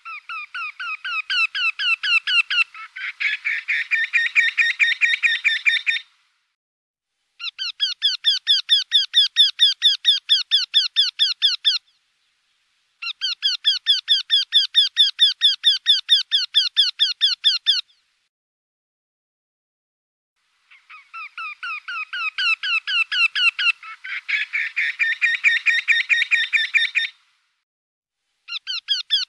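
Eurasian wryneck singing: about four runs of quickly repeated 'quee' notes, roughly four a second, each run lasting four to six seconds with short pauses between. Two of the runs have a second run overlapping them partway through, and another run begins near the end.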